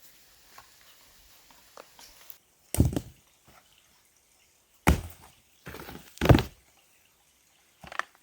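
Heavy wooden thuds and knocks from log work, spaced a second or two apart, with a loud double thud about three-quarters of the way through.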